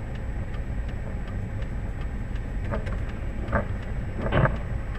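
Steady low engine and road rumble heard from inside a car's cabin, with faint ticking about three times a second. Three short louder sounds break in about three and four seconds in, the last the loudest.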